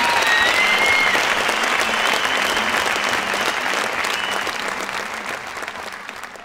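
Crowd applauding, with a couple of high whistles over it in the first second, fading out over the last two seconds.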